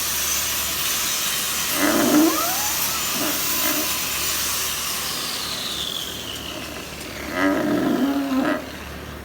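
A cow moos twice: a short call about two seconds in and a longer one near the end, both over a steady high hiss. Midway, a whine in that hiss falls slowly in pitch.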